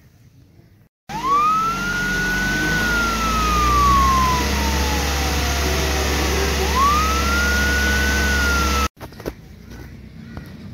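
Emergency-vehicle siren wailing over a low engine rumble: a quick rise in pitch, a long slow fall, then a second rise. It starts abruptly about a second in and cuts off suddenly near the end, like an added sound effect.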